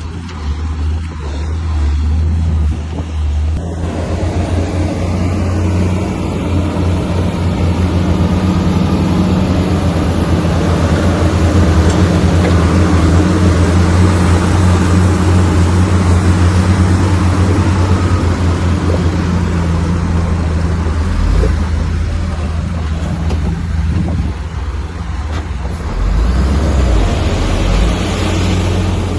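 Komatsu bulldozer's diesel engine working under load, a steady low drone. About four seconds in, a loud broad churning noise joins it, the sound of the blade and tracks pushing stone and dirt. It eases briefly a few seconds before the end, then picks up again.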